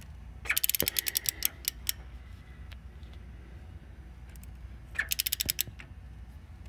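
Ratchet handle on a Jenbacher gas engine's manual turning gear clicking in two quick runs: about a dozen clicks around half a second in, then a shorter run around five seconds in, as the engine is rotated by hand.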